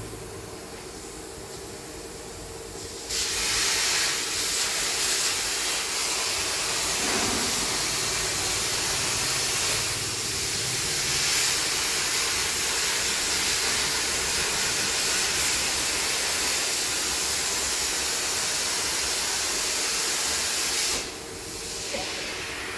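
Plasma cutting torch of a portable CNC cutting machine, cutting with a loud, steady hiss that starts abruptly about three seconds in and stops about three quarters of the way through, over a faint steady hum.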